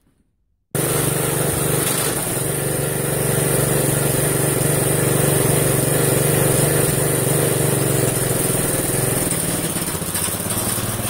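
Briggs & Stratton engine on a rat-rod lawn tractor running steadily under way, starting about a second in. The tractor drives past near the end.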